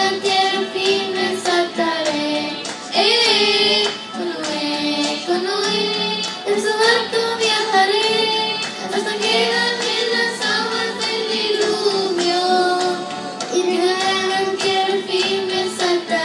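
Two young girls singing a worship song together into microphones, with long held notes.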